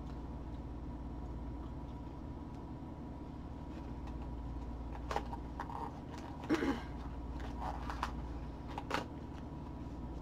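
Small cardboard toy boxes and their wrapping being handled and opened: a few short rustles and crinkles from about halfway through, over a steady low room hum.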